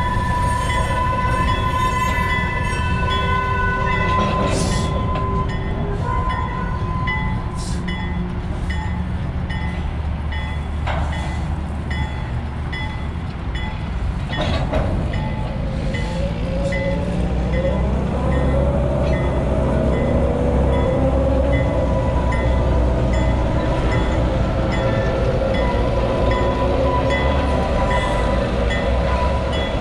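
Small diesel switcher locomotive hauling covered hopper cars at slow speed. The engine rumbles low and grows louder and higher from about halfway, as it pulls harder. A bell dings repeatedly throughout, with a steady high squeal at times and a few sharp metallic clanks from the cars.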